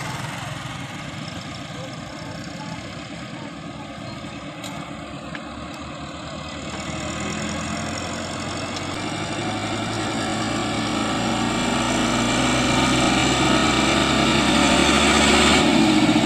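Massey Ferguson 385 tractor's four-cylinder diesel engine running steadily under load as it pulls a heavily laden trailer, growing steadily louder from about seven seconds in as it approaches.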